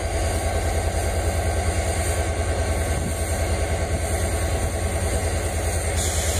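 WDM-3A diesel-electric locomotive's ALCO 16-cylinder diesel engine running steadily at low power, a deep, even throb with a fast regular pulse.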